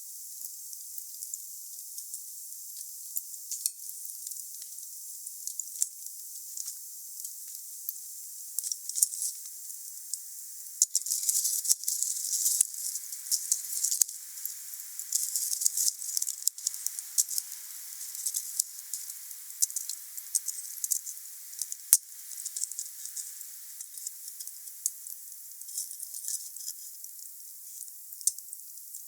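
Wood fire burning, crackling and hissing steadily with many small sharp pops. It flares up into denser crackling from about a third of the way in to just past the middle, and a few louder single pops stand out, the loudest about three quarters of the way through.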